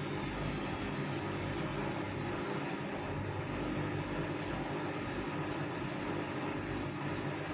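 Vestel CM8710 washing machine running on its hand-wash/wool programme: a steady motor hum with a few constant low tones, no change in speed.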